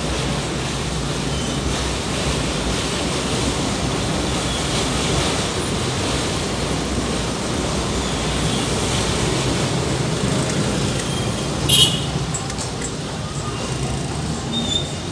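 City traffic heard from inside a car: steady engine and road noise, with one short, sharp, loud sound about twelve seconds in.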